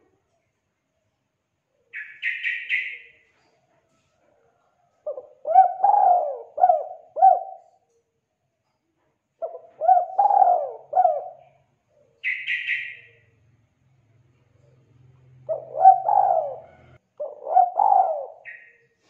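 Spotted dove singing: four phrases of its rolling, multi-note coo, each lasting about two seconds. Short high chirping trills come before the first phrase, between the second and third, and at the very end.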